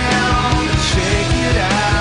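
Loud rock music with distorted guitars and a steady drum beat.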